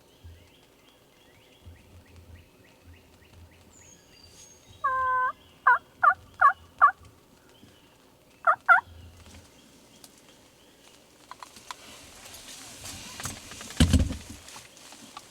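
Turkey calling: one loud drawn-out note, then four short sharp yelps in quick succession and two more a moment later, over faint songbird chirps. Near the end there is a rustling and one loud thump.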